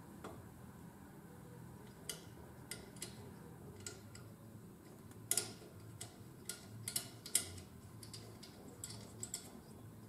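Irregular light clicks and clacks as an LED work light is handled and fitted onto its mounting bracket, the loudest about five and seven seconds in, over a low steady hum.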